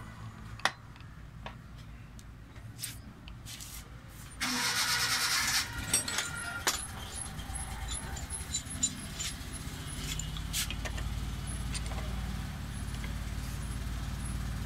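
Metal clicks and clinks from hand work on a Toyota 5L diesel distributor injection pump held in a steel bench vise. A loud rushing hiss comes about four seconds in and lasts just over a second, and a low rumble builds from about ten seconds on.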